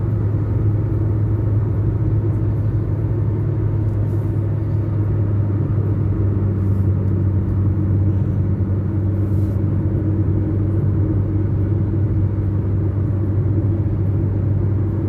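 Steady low rumble of a running vehicle engine with a constant hum; a second, higher hum joins about five seconds in.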